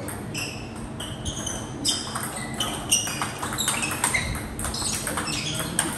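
Table tennis balls clicking off rackets and tables in quick, irregular succession, each hit with a short high ring: a rally, overlapped by play at a neighbouring table.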